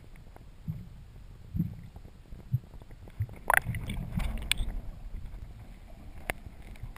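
Muffled underwater sound picked up by a camera in a waterproof housing: irregular low knocks and thumps from water movement and handling of the housing, with a cluster of sharper clicks about three and a half to four and a half seconds in and one more near the end.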